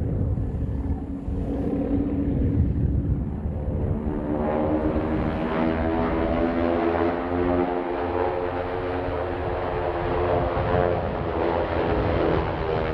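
Formation of single-engine propeller aircraft passing overhead: a steady engine drone swells in about four seconds in and stays strong to the end, over a low wind rumble on the microphone.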